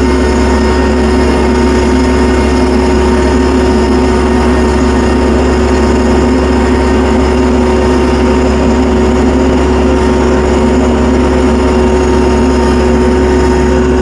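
Tractor engine running steadily at a constant speed, with a loud, even hum and low rumble.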